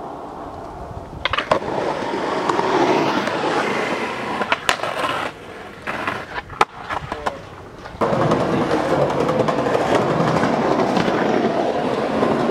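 Skateboard wheels rolling over street pavement, with sharp clacks of the board against the ground about a second in and again around the middle. A quieter patch follows, then a louder stretch of rolling starts suddenly near the two-thirds mark.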